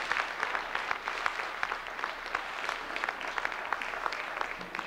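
Audience applauding, a dense run of hand claps.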